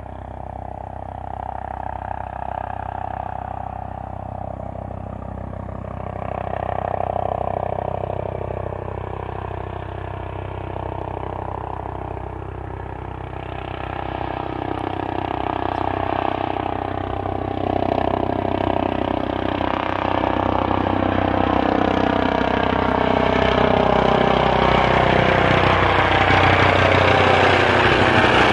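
Eurocopter EC155 (Airbus H155) twin-turbine helicopter approaching and coming overhead: turbine whine and rotor noise grow steadily louder, and several tones slide down in pitch in the second half as it closes in.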